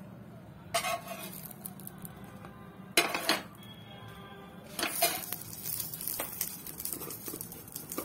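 A metal utensil knocking and scraping on an iron tawa as toasted burger buns are lifted off it: a few sharp clanks, the loudest about three seconds in with a brief ring after it, then lighter scrapes and taps.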